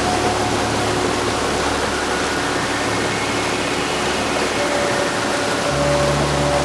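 Heavy rain falling steadily, a dense even hiss, with faint held tones underneath.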